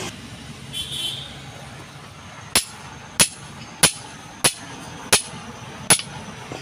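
Hammer striking a steel hole punch six times, about one blow every two-thirds of a second, each blow with a short metallic ring, punching a bolt hole through a block of layered tire rubber.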